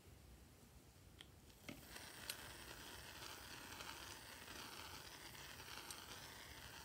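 Aerosol foam can spraying, a steady hiss that starts about two seconds in after a few light clicks as the can is handled.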